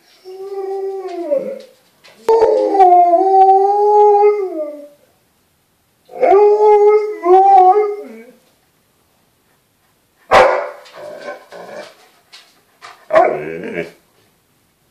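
Alaskan Malamute howling: three long howls, each holding a steady pitch and dropping off at the end. About ten seconds in come shorter, rougher calls.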